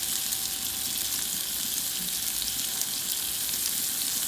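Zucchini slices frying in oil in a pan, a steady sizzle.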